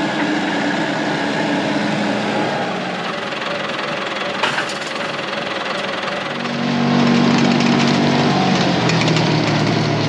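Diesel tractor engines running at idle, with one sharp clank about four and a half seconds in. About six and a half seconds in, a deeper engine note comes in louder.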